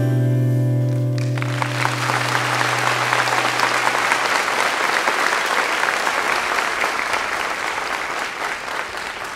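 The final held chord of the song rings out and fades over the first few seconds while audience applause comes in about a second in and carries on, slowly fading.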